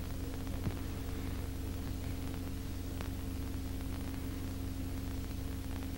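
Steady low electrical hum over a faint hiss, the background noise of the soundtrack, with a couple of faint clicks.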